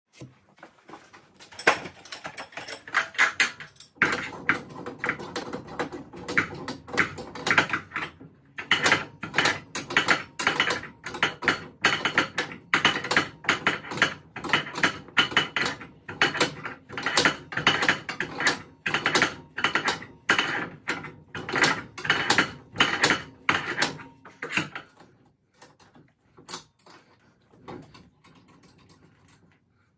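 Garage door torsion spring being turned by hand with steel winding bars: a fast run of metallic clicks and clanks, several a second, that thins out to a few scattered clicks near the end.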